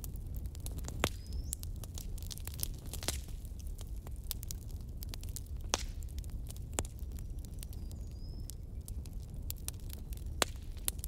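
Fire crackling: irregular sharp pops and snaps over a steady low rumble, with a few louder pops. Twice there is a brief high whistling hiss.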